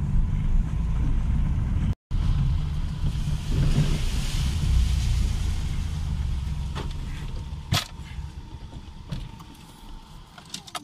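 Car running, heard from inside the cabin with a side window open: a steady low rumble that dies away over the second half. It cuts out for an instant about two seconds in, and a sharp click comes about eight seconds in.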